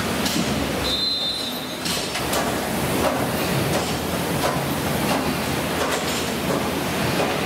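Busy gym workout noise: fan-flywheel exercise machines (air bikes, ski ergometer, rowers) whirring steadily, with scattered knocks and clanks of weights and medicine balls.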